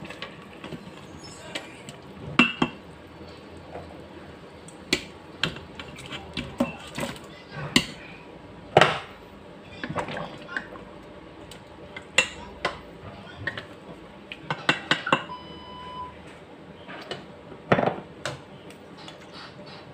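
A wooden spoon knocks and scrapes against a stainless steel pot of pork and broth, and raw chicken pieces are dropped into the liquid. The result is irregular clunks, clinks and wet splashes.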